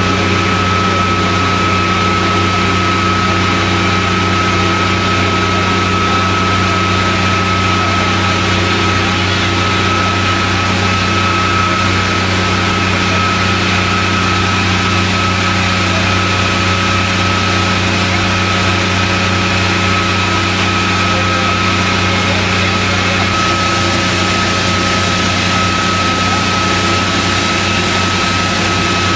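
Fire engine running steadily at the scene: a constant engine drone with a steady high whine over it.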